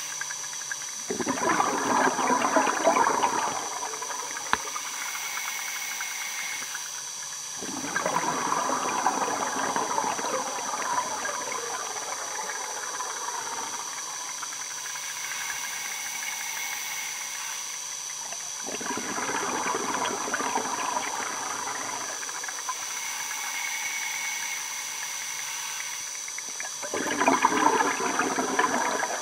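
Underwater, four bursts of bubbling, each lasting a few seconds, typical of a scuba diver's regulator exhaust as the camera diver breathes out, over a steady hiss with a faint high whine from the camera housing.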